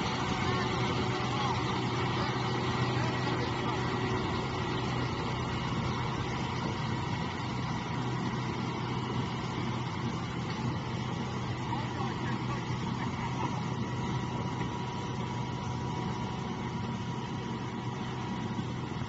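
Heavy 8x4 truck's diesel engine running steadily, with a low hum and a steady high whine over it.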